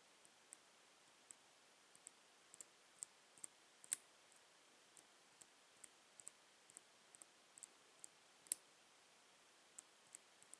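Faint, irregular high-pitched clicking, about two or three small clicks a second, with two louder sharp clicks about four seconds and eight and a half seconds in.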